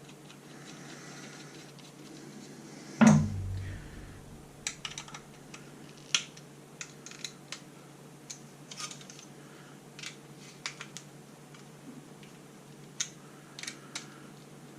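Small hardware being handled inside a desktop PC case: a single thump about three seconds in, then scattered light clicks and taps of metal and plastic parts.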